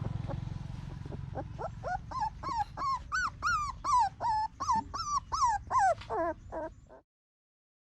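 An animal's short whining calls, about fifteen of them, each bending up then down in pitch, coming two or three a second, with the last few dropping lower before the sound cuts off suddenly.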